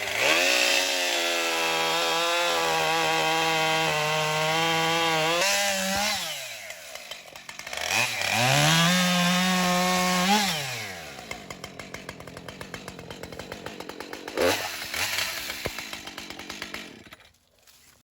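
Two-stroke chainsaw revved up to full throttle twice, each run held a few seconds, dropping back to idle between and after, then fading out near the end.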